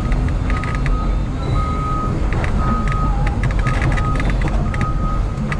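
Excavator's diesel engine running steadily with a low rumble, while a high beeping tone sounds in short dashes about once a second and light clicks and clatter come through.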